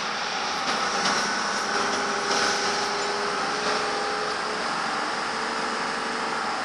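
ÖBB Taurus electric locomotive moving along the station tracks. Its electric drive gives a steady whine of several tones over a running rumble, and the tones step up slightly in pitch about halfway through.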